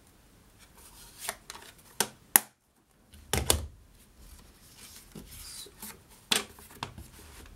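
Cardstock and craft tools handled on a tabletop: paper rubbing and shifting, broken by a few sharp clicks and knocks, the loudest about two and a half seconds in and again about a second later.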